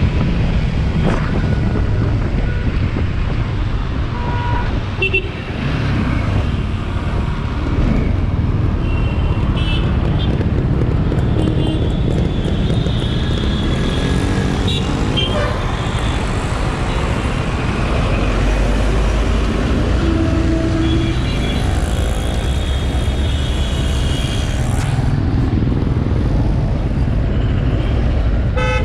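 A Bajaj Dominar 400's single-cylinder engine running while riding through road traffic, with wind and traffic noise and short horn toots now and then.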